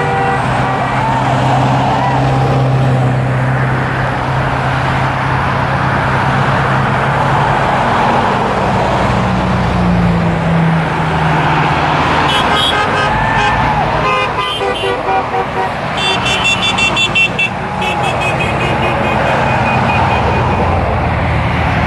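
Road traffic passing, with a heavy engine drone that rises in pitch about nine seconds in. This is followed by a run of short vehicle-horn honks in quick succession, loudest a little past halfway.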